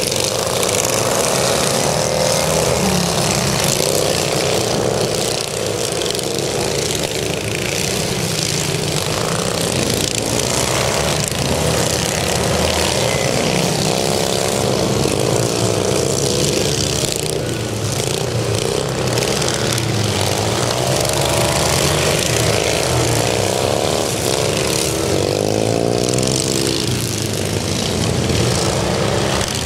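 Several racing lawn mowers' small engines running hard at once, their pitches rising and falling as the mowers speed up and slow down around the track.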